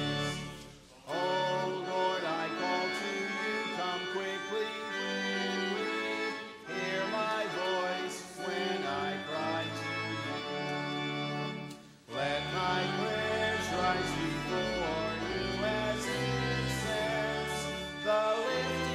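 Organ music with a voice singing, in slow sustained phrases broken by brief pauses.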